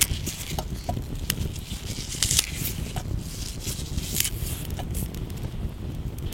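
Wood campfire crackling, with scattered sharp pops and snaps over a steady low noise.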